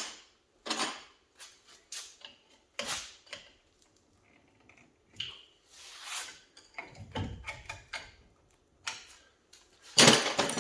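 Irregular metallic clinks and clanks of hand tools and brake hardware being handled, with a louder clank near the end.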